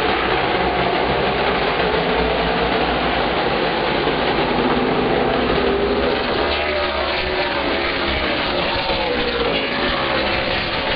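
A pack of Outlaw Super Late Model stock cars racing at full throttle. Many V8 engines run together, and their pitches rise and fall across one another as the cars pass and enter the turn.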